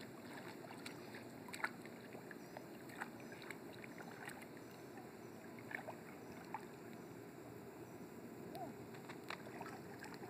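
Faint lapping and small scattered splashes of swimming-pool water as a baby is moved through it, over a steady low background noise.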